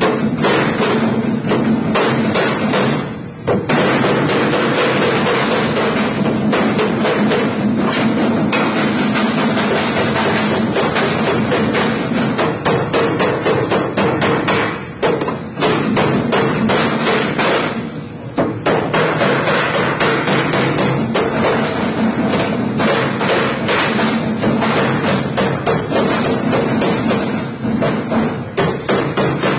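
Rapid, steady hammer blows on galvanized sheet metal, folding over and closing the Pittsburgh lock seam of a duct elbow, with brief pauses about three seconds in and again near fifteen and eighteen seconds.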